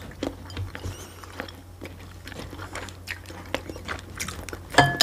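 Close-miked chewing and eating: many small wet mouth clicks and smacks. Near the end comes a louder, brief sound whose pitch falls.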